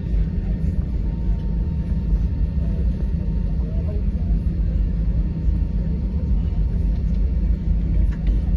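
Steady low rumble of cabin noise aboard an Airbus A320 on the ground after landing.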